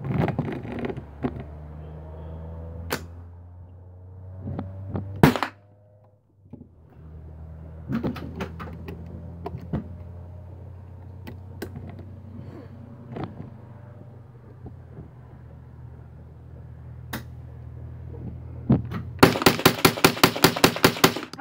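Gunfire at targets: a few single sharp shots spaced several seconds apart, the loudest about five seconds in, then near the end a rapid string of about twenty shots at roughly ten a second over two seconds.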